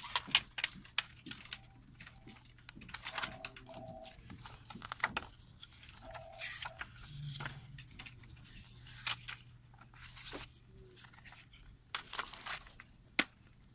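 Plastic CD jewel cases and a paper booklet being handled: irregular clicks and taps of the plastic cases, with paper rustling as the booklet pages are flipped. A sharp click of a case comes near the end.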